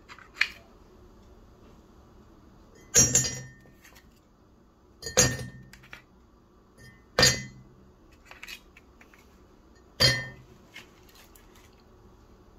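Four frozen coffee cubes dropped one at a time into a glass mug, each landing with a sharp clink against the glass and a brief ring, two to three seconds apart. A few lighter ticks follow as the cubes settle.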